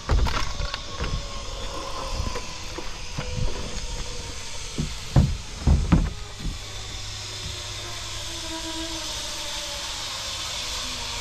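Knocks and thuds of someone moving about on a wooden zip-line landing deck and step box, the loudest a few sharp knocks about five and six seconds in. Under them runs a steady hiss and a faint whine that slowly falls in pitch.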